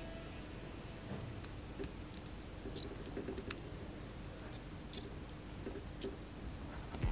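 Small screwdriver turning a tiny screw in a 3D-printed plastic suspension assembly: scattered light clicks and scratchy ticks, coming more often from about three seconds in.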